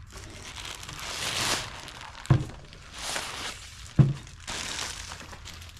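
Plastic packaging bag rustling and crinkling as it is worked off a portable power station, with two short, dull thumps, one a little past two seconds in and a louder one about four seconds in.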